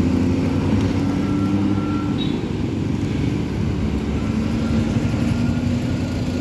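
Road traffic: an intercity bus's engine running as the bus pulls away and turns, then a motorcycle passing close. The sound stays steady throughout, with engine tones shifting slightly in pitch.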